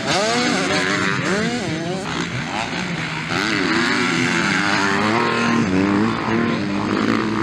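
Motocross bike engines revving hard as riders pass close by, the pitch climbing and falling again and again with the throttle and gear changes.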